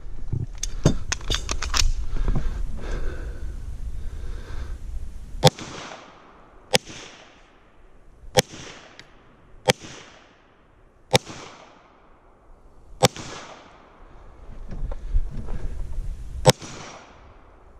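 Pistol shots: a fast string of about seven in under two seconds, then single shots every one to two seconds or so, each with a short echo.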